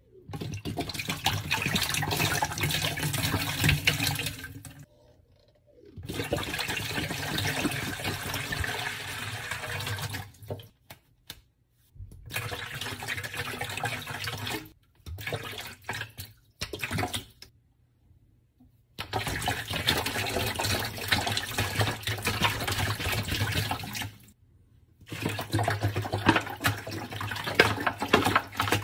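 Water pouring from plastic bottles into a large wooden bowl, in about six pours of a few seconds each that start and stop abruptly.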